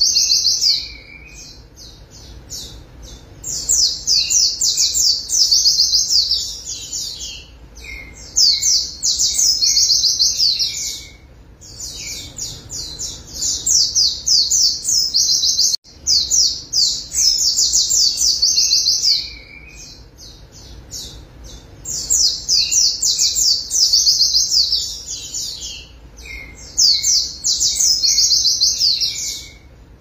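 White-eye (pleci, Zosterops) singing: repeated bursts of fast, high-pitched twittering song, each a few seconds long, separated by short pauses.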